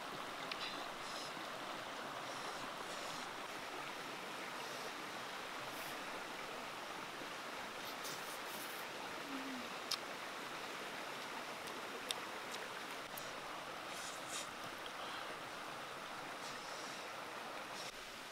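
Steady rushing of flowing stream water, with a couple of short sharp clicks about ten and twelve seconds in.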